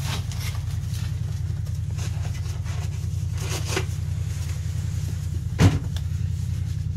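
A motor running steadily, a low drone with a fast even pulse, and one sharp click about five and a half seconds in.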